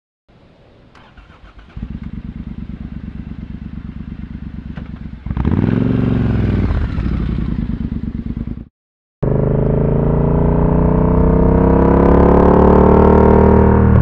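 Triumph Thunderbird Storm parallel-twin breathing through a British Customs Predator exhaust. It starts up and settles into a loping idle, gets one blip of the throttle about five seconds in, then, after a brief cut, pulls hard under acceleration with the pitch rising steadily.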